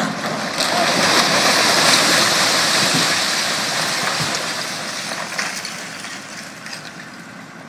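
Concrete rubble pouring down as part of a building collapses during demolition: a rushing crash that swells about half a second in and slowly dies away over several seconds.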